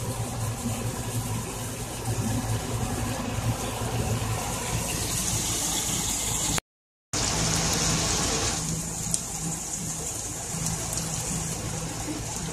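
Steady machine hum with a hiss over it. The sound cuts out completely for about half a second a little past halfway, then carries on.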